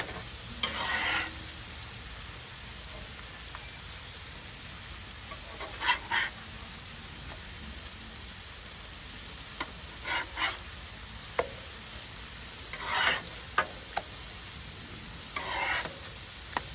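Smash burger patties sizzling on a hot griddle, with a metal spatula scraping across the cooking surface in several short strokes as the patties are flipped.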